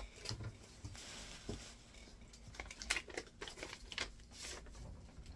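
Paper rustling and crinkling in a run of short, irregular rustles as a greeting card and its envelope are handled and opened.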